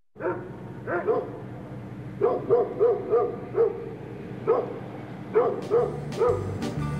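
A dog barking repeatedly, short barks in irregular groups of one to three. Music comes in about five and a half seconds in.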